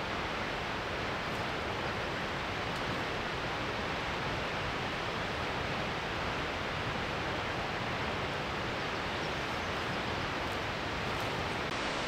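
A large waterfall's falling water making a steady, even rushing noise.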